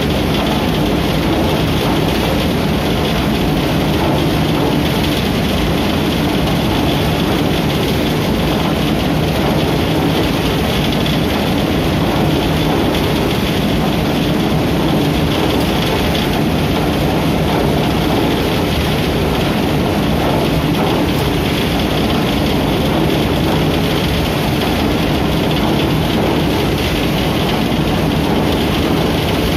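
Shaftless threshing machine running steadily, with straw tumbling and beating inside its wire-cage drum under a continuous mechanical drone.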